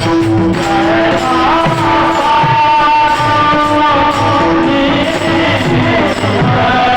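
Marathi devotional kirtan music: a sung melody line that rises and is held, over a steady held tone and repeated low hand-drum strokes.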